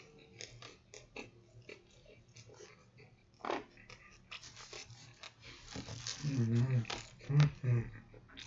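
A person eating: chewing and lip-smacking mouth sounds with many short clicks, a sharp rustle about three and a half seconds in, and a few low hums near the end.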